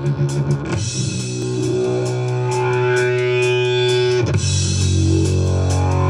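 Rock music: held electric guitar chords over bass, changing chord about a second in and again near four seconds.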